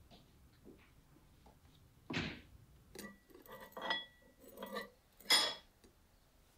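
Metal spoon scraping and clinking against a ceramic bowl, a few separate strokes with a short ring after some of them, the loudest near the end.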